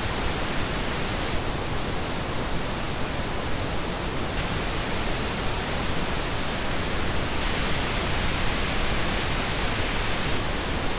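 Steady pink noise with a parametric EQ band at 2.5 kHz (Q of 4) switched in and out. About a second and a half in, the band is cut by 3 dB for some three seconds. It returns to flat, and from about seven seconds in it is boosted by 3 dB for some three seconds, sounding more forward and a little airy, before going flat again near the end.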